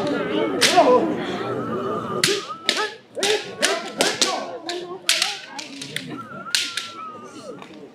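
Practice swords striking in armoured sword sparring: about a dozen sharp, irregularly spaced cracks, with people's voices murmuring underneath.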